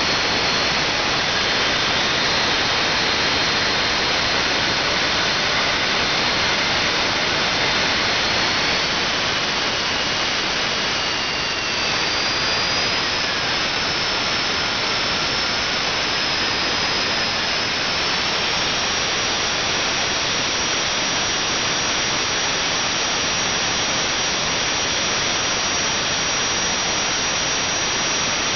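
Small home-built gas turbine (jet) engine running on a test stand: a loud steady rushing roar with a high whine. The whine climbs in pitch around the middle and holds higher as the engine speeds up.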